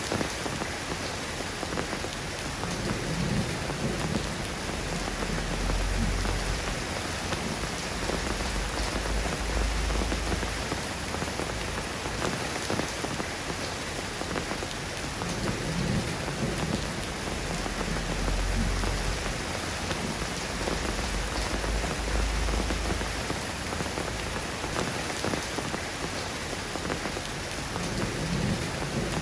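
Steady soft rain falling, an even hiss of drops, with a low rumble swelling up and fading away three times.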